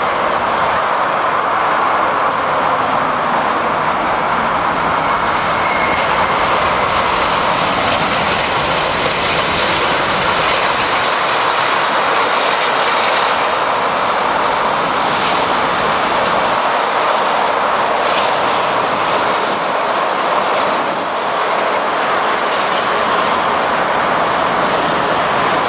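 Jet airliner's engines on a landing, a loud, steady noise that holds even throughout.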